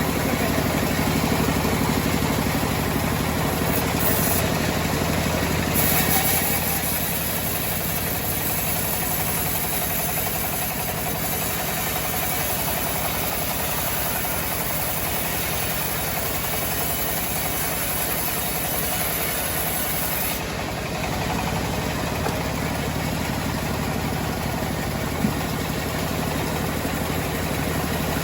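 Engine of a homemade sawmill running steadily, with a single sharp tick near the end.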